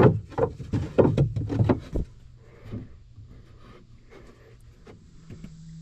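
Wooden sticks knocking and scraping against the inside of a wooden smoker box as they are fitted in place: a quick run of knocks over the first two seconds, then quieter handling.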